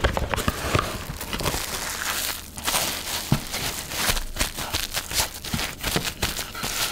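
Plastic cling wrap crinkling and crackling as hands press and smooth it tight around a sandwich, a dense run of small crackles with a brief lull about two and a half seconds in.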